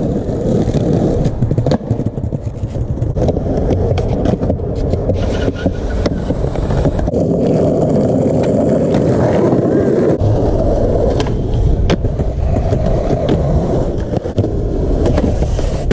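Skateboard wheels rolling loudly over concrete and asphalt, with several sharp clacks of the board popping and landing along the way.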